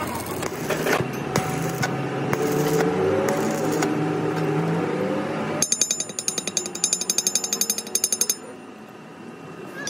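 Metal-shop noise: a steady run of machine noise with a slowly rising hum, then rapid metallic hammering at about eight blows a second with a bright ring, which stops abruptly after nearly three seconds.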